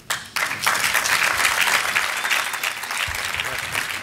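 Audience applauding: a crowd's clapping that breaks out suddenly and reaches full strength within about half a second, then holds steady.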